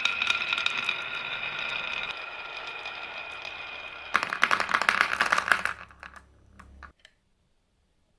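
Marbles rolling on a toy marble run, at first a steady ringing roll with light clicks, then a loud burst of rapid clattering about four seconds in that dies away into a few last clicks and stops.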